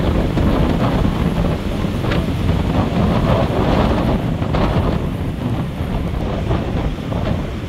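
Gusty wind buffeting the microphone, with the rush of rough storm surf breaking on the beach underneath.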